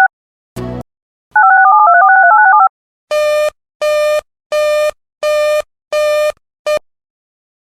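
Electronic signal tones: a short jingle of paired tones stepping up and down in pitch, a brief burst, the jingle again for about a second, then five evenly spaced buzzy beeps about two-thirds of a second apart and a cut-off sixth.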